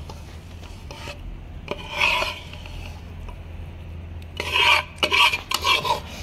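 Rasping scrapes of roasted flour being stirred and scraped in a metal pan, with louder, quicker strokes in the last two seconds.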